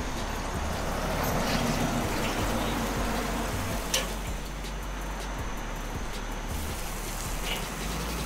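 Chicken legs sizzling on the grate of a charcoal kettle grill, a steady hiss. Metal tongs click against the grate now and then, most sharply about four seconds in.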